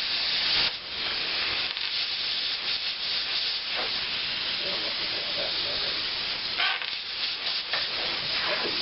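Plasma cutter torch running, a steady hiss of compressed air through the tip that dips briefly less than a second in and again near the end.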